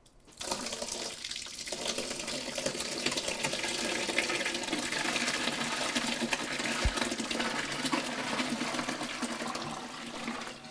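Curds and whey poured from a stainless steel pot into a cheesecloth-lined colander in a stainless steel sink: a steady splashing pour that starts about half a second in and eases off near the end.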